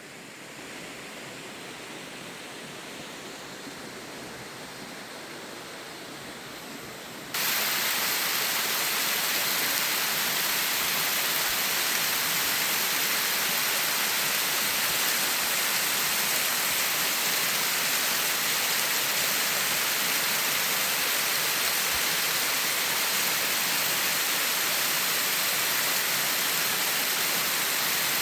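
Mountain waterfall: a steady rush of falling water. About seven seconds in it suddenly becomes much louder and brighter, then holds steady.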